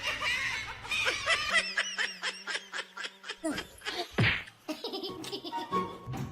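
A person laughing, with a quick run of short, repeated laughs in the middle.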